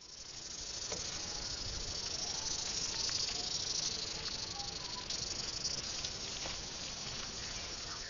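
Sound-design recreation of a giant extinct millipede, Arthropleura: a steady, high hiss of scaled-up stridulation, built from real millipede and centipede sounds, with a few faint ticks. It fades in over the first second.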